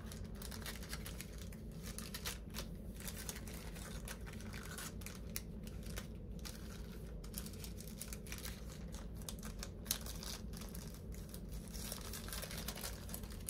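Clear plastic sleeve crinkling as hands handle a sticker sheet and fold the wrapper: a string of light, irregular crackles.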